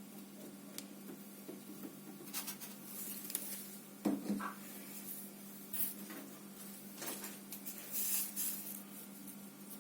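Pink slime being mixed and squished by hand, giving irregular sticky clicks, crackles and small pops, busiest in the second half.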